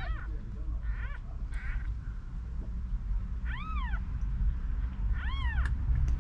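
Very young kittens mewing: short, thin, high calls that rise and fall, a few seconds apart, the two clearest in the second half, over a steady low rumble.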